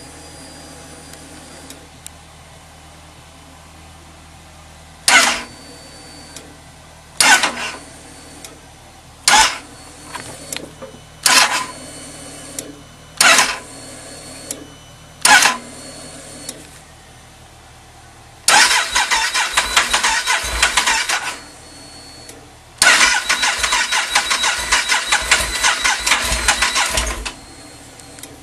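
Yamaha Super Tenere XT1200Z's parallel-twin engine being cranked on its electric starter in six short stabs about two seconds apart, then in two longer cranks of a few seconds each. It never catches and runs: a reproduced hard-starting condition.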